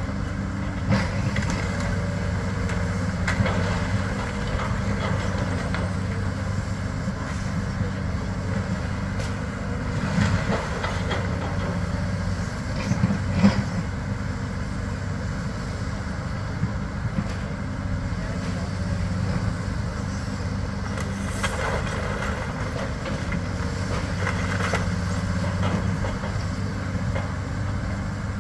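Long-reach demolition excavator's diesel engine running steadily as it works, with occasional knocks and clatters of debris being pulled down.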